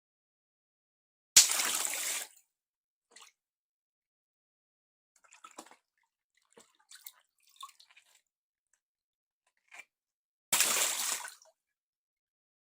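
Water balloons popping twice, about nine seconds apart, each a sharp pop followed by about a second of water splashing out. Faint drips and crinkles in between.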